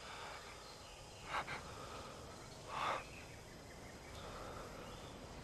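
A man's two short breathy gasps as he catches his breath after climax, about a second and a half and three seconds in, the second louder, over a faint steady outdoor background hiss.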